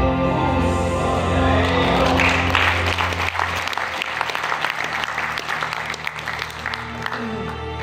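Performance music playing, with an audience clapping over it: the applause starts about a second and a half in, builds, and dies away near the end while the music carries on.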